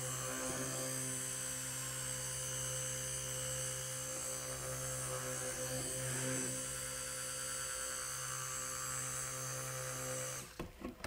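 Stick blender motor running steadily as a hum while it blends soap batter toward trace, then switched off near the end.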